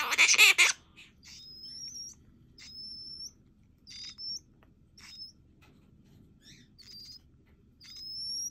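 Pet parakeets calling: a loud burst of scratchy chatter that stops within the first second, then a run of short, thin whistles that rise in pitch, about one a second.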